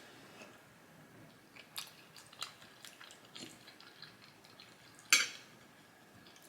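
Close-up eating sounds of someone chewing a mouthful of hot mostaccioli pasta: a run of short wet clicks and smacks, with one louder sharp click about five seconds in.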